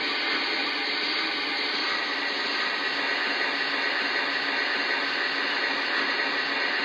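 Lionel O-scale Milwaukee Road S-3 steam locomotive model giving a simulated steam blowdown at its cylinders: a loud, steady hiss that starts suddenly.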